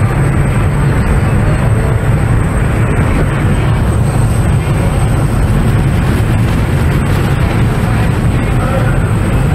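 Steady, loud rumble of a high-speed tour boat running flat out: engine drone and rushing water mixed with strong wind buffeting the microphone.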